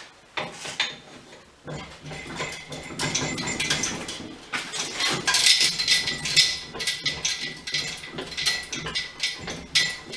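Metal clinking and rattling as the hydraulic spring compressor's hanging chain and fittings are handled: a dense run of small clinks that starts about two seconds in and is busiest in the middle.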